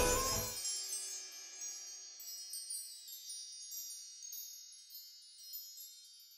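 High tinkling chimes ringing on and fading slowly away after the music's low part stops about half a second in.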